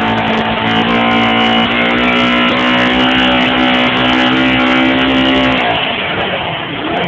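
Suzuki GSX600F's inline-four engine running, held at a steady raised speed with an even pitch, then dropping back toward idle about five and a half seconds in.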